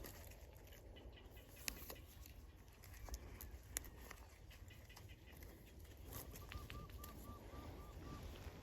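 Faint outdoor quiet with a few light clicks; near the end a bird calls a quick run of about eight short, even notes at one pitch, some four a second.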